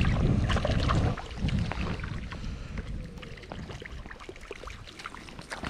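Wind buffeting the microphone as a low rumble for about the first second, then water splashing and lapping in a shallow stream with scattered small clicks, growing quieter toward the end.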